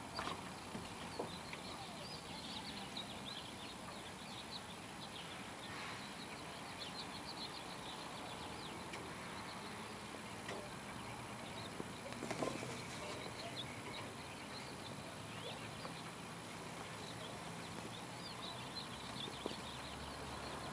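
Many small birds chirping over a steady background hiss, with an occasional faint knock, the loudest about twelve seconds in.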